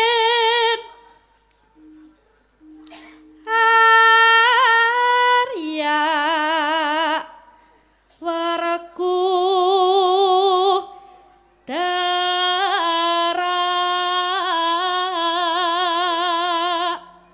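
A sinden (Javanese female gamelan vocalist) singing solo through a microphone, with no gamelan audible. Her long, ornamented phrases carry a wide vibrato, and she sings four phrases with short breaths between them.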